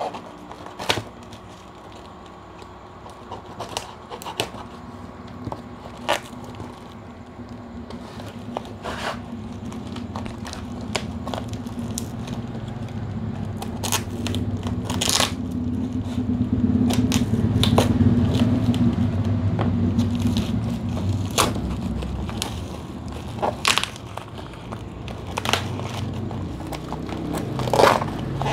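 Utility knife slitting packing tape on a parcel, with sharp rips and crackles of tape and cardboard being torn open, scattered irregularly. A low rumble swells and fades in the background through the middle.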